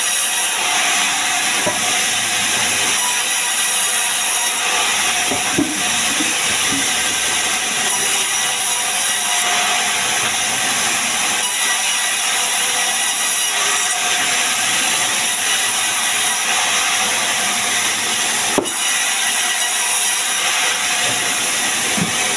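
Sawmill vertical band saw running and cutting lengthwise through a sengon log, a steady loud hiss with no let-up. A few short knocks come through, the sharpest about three quarters of the way in.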